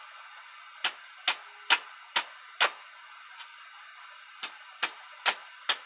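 Hammer blows ringing on a steel dog tie-out stake as it is beaten to a sharper bend: five strikes at about two a second, a short pause, then four more.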